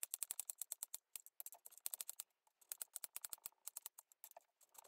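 Small kitchen knife chopping soft avocado and tapping on a cutting board: quick light taps, several a second, in three runs with short pauses.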